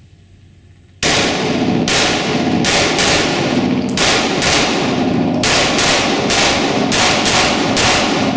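Taran Tactical Combat Master Glock 19 9mm pistol fired in a steady string of more than a dozen shots, roughly two a second, starting about a second in. Each shot echoes off the walls of an indoor range.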